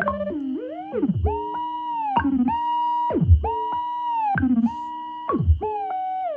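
Ciat Lonbarde Plumbutter analog synthesizer playing through a speaker: pitched, buzzy notes about one a second, each held briefly and then sliding steeply down into deep bass, over a steady high tone.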